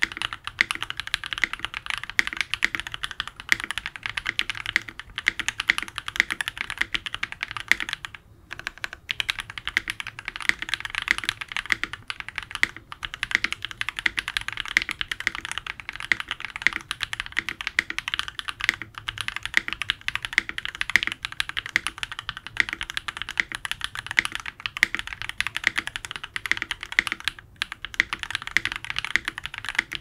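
Fast continuous typing on a Thera75 V2 mechanical keyboard, top-mounted with a carbon-fibre plate, KTT F1 switches, GMK keycaps and PCB and case foam: a dense, unbroken stream of key clacks, pausing briefly about eight seconds in and again shortly before the end.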